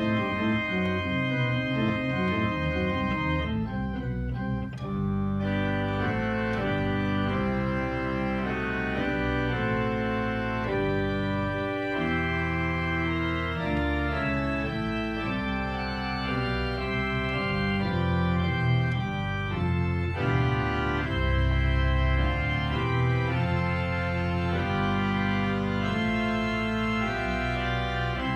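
Organ music: held chords over a sustained bass line, the notes changing every second or so.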